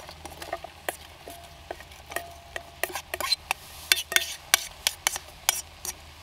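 A utensil stirring onion and browning beef in a Trangia camp-stove pan: irregular scrapes and clicks against the pan over a faint sizzle.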